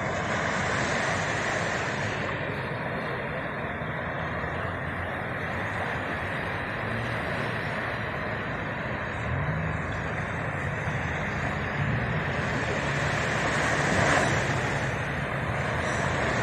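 Steady rushing noise of wind and surf on a beach, with a low steady hum underneath from about halfway in.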